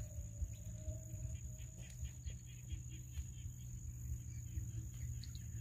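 Outdoor field ambience: a steady high insect drone with a low rumble of wind on the microphone.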